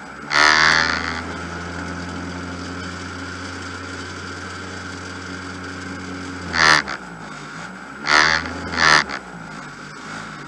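Rally car engine starting with a loud rev flare, then idling steadily for several seconds. Near the end it is revved in three short blips.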